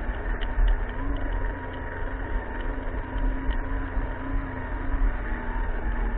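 Electric motor and gear drive of a radio-controlled scale crawler whining steadily as it crawls over dirt, its pitch wavering slightly with the load, picked up by a camera mounted on the truck. Under the whine runs a low rumble of the chassis jolting over the ground.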